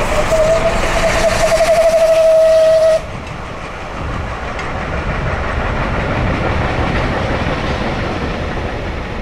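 Steam locomotive whistle blowing one long note that wavers near its end and stops sharply about three seconds in. After it, the train's carriages and wagons keep rolling over the rails, easing slightly as the train moves away.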